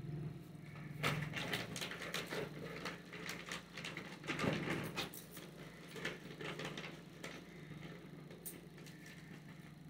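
Clear plastic sheet crinkling and a cardboard box being handled: a busy run of rustles and small knocks that thins out after about seven seconds, over a steady low hum.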